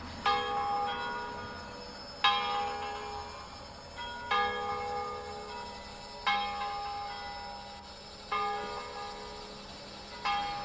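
Tower church bell tolling: six strikes about two seconds apart, each ringing on and fading until the next.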